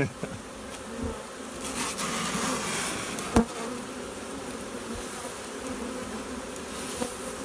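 A large honeybee swarm buzzing steadily, a calm hum from bees that are not in defensive mode. A single sharp knock sounds about three and a half seconds in.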